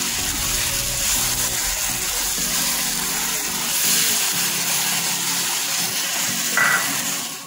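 Blended chili sambal frying in oil in a wok, a steady sizzling hiss, as a silicone spatula stirs the paste. A low steady hum runs underneath.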